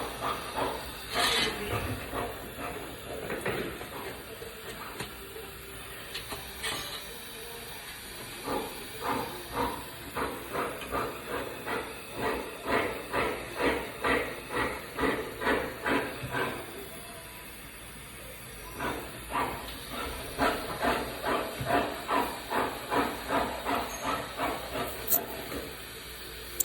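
Rhythmic scraping strokes, about two to three a second, in two long runs separated by a short pause, typical of hand-working a workpiece with a file or brush.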